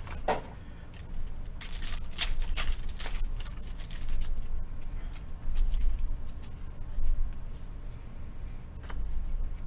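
Rustling, crinkling and clicking of packaging and cards being handled as a box of trading cards is opened, in short bursts that are busiest in the first few seconds.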